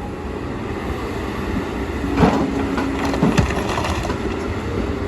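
Kobelco excavator's diesel engine running steadily, with its bucket knocking and scraping against stones for about two seconds near the middle, along with a brief steady hydraulic whine.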